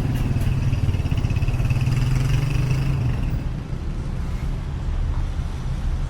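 Motor vehicle running, a low hum with a higher whine over it, loudest for the first three seconds and then easing off as if passing by.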